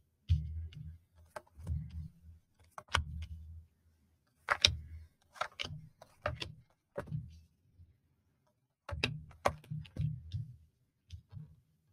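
Tarot cards being handled on a table: irregular sharp clicks and soft thumps, about a dozen of them, as the cards are shuffled, tapped and laid down.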